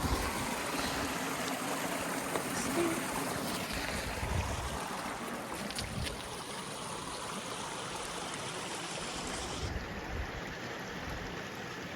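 Steady rush of a flowing desert creek, with a few low rumbles here and there.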